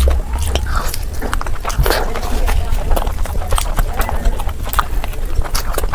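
Close-miked chewing and lip-smacking of someone eating, with quick wet mouth clicks several times a second.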